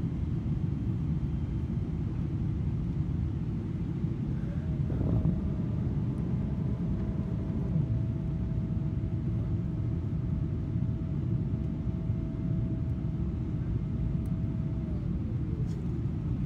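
Boeing 777-300ER cabin noise on approach: a steady low rumble of the engines and airflow. A whine rises about four seconds in, holds steady, and falls away near the end.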